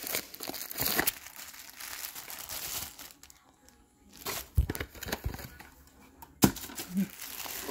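Clear plastic wrapping around a plush microfiber makeup-removing cloth crinkling as it is handled, with two sharp bumps in the second half.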